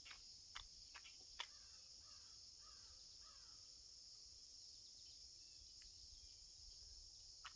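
Near silence outdoors with a steady high trill of crickets or other insects, and a few faint clicks in the first second and a half.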